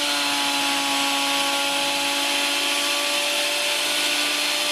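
Parkside PADM 1250 planer-thicknesser running and taking a very light pass on a hard oak board fed through the thicknesser: a steady whine over a strong hiss.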